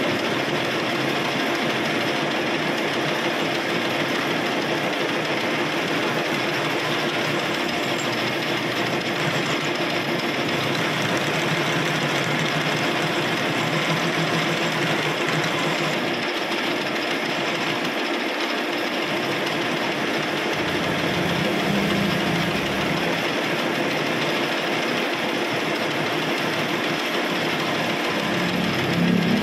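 Metal lathe running steadily, its spindle and chuck turning at speed with a continuous even machine hum.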